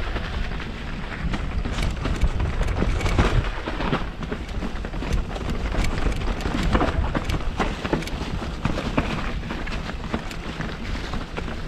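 Mountain bike ridden down a wet dirt trail, heard from an action camera: a steady wind rumble on the mic under constant rattling and knocking from the bike and tyres over rough ground.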